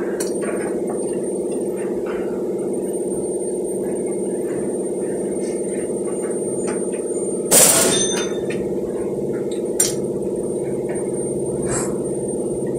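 Steady mechanical hum, with a sharp metallic clank about halfway through that rings briefly and a lighter click a couple of seconds later: metal tools and parts being handled at the transmission pan of a 2010 Ford Explorer.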